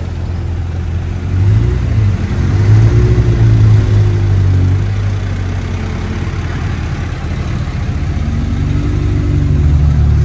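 Vehicle engine pulling in traffic, rising in pitch and easing off twice, over steady road and wind noise in an open-top jeepney.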